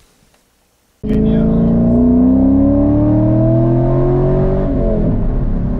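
Motorcycle engine accelerating, cutting in suddenly about a second in. Its pitch rises steadily for a few seconds, then drops near the end as at a gear change.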